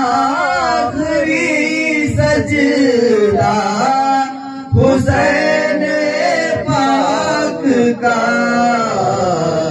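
A man singing an Urdu devotional kalam in long, drawn-out phrases, the notes held and bending in pitch, with two short breaths between phrases.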